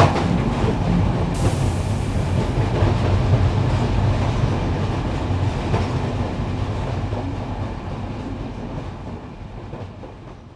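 Freight train running along the track, a steady rail noise that fades away over the last few seconds.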